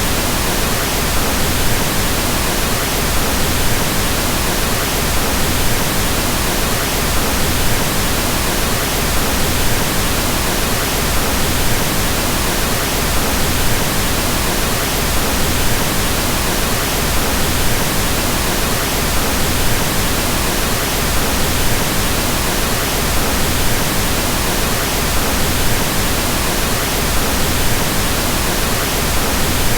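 Pink noise: a steady, even hiss with more weight in the low end, unchanging throughout.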